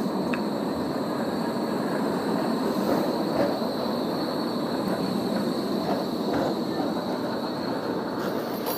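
A Bombardier Flexity Berlin low-floor articulated tram rolling past at close range: a steady rumble of steel wheels on the rails, a little louder about three seconds in.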